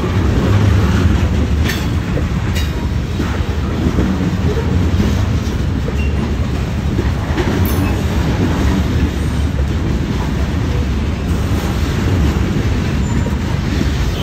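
Freight train of loaded covered hopper cars rolling past close by: a steady rumble of steel wheels on rail, with a few sharp clicks as the trucks pass.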